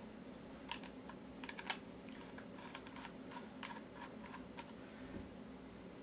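Faint, irregular small clicks and ticks of a screwdriver and metal drive bracket being handled as the screws are taken out of a 2.5-inch laptop hard drive's mounting bracket.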